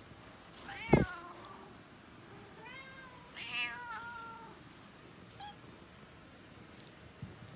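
House cat meowing twice: a short meow falling in pitch about a second in, with a sharp thump at the same moment, then a longer meow that rises and falls a couple of seconds later.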